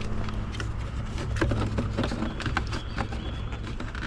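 Light clicks and taps of plastic parts as a multifunction switch is worked into a Jeep steering column, scattered irregularly over a steady low hum.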